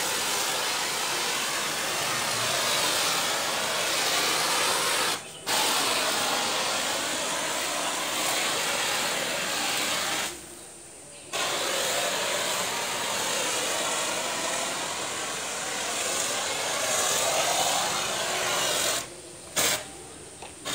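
Pressure washer running and spraying snow foam through a foam lance: a steady hiss of spray that stops briefly about five seconds in, for about a second around ten seconds in, and again near the end as the trigger is let go.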